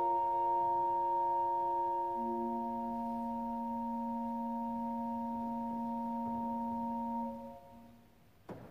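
Pipe organ holding a final sustained chord, with a lower note coming in about two seconds in. The chord is released about seven seconds in and dies away in the church's reverberation, followed by a short knock near the end.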